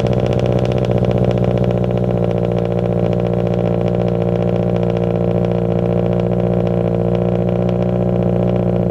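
Subaru BRZ's flat-four engine idling steadily just after starting up, a loud, even exhaust note.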